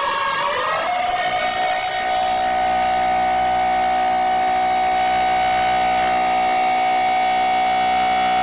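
Emergency alert siren: a falling wail that steps up about a second in to a steady, held siren tone. A lower steady drone joins it about two seconds in.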